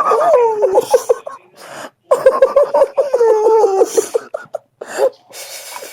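Boxer dog crying and whining in long wavering calls that slide down in pitch and break into rapid pulses, in two stretches with a short pause between.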